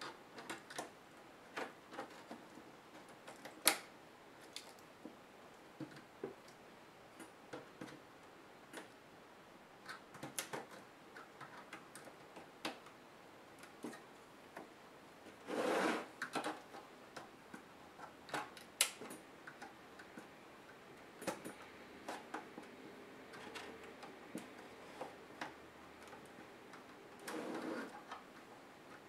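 Plastic case clips of a Samsung NP305E7A laptop clicking as the case seam is pried open with a pocket-knife blade: irregular sharp clicks and snaps. There are two longer scraping rustles, one about halfway through and one near the end.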